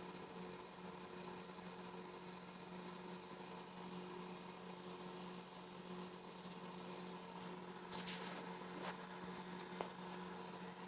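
Steady low electrical hum with faint hiss. About eight seconds in comes a short cluster of sharp clicks, and a couple of single clicks follow near the end.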